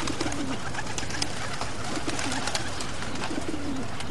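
Pigeons cooing, a string of short low coos one after another over a busy scatter of small clicks.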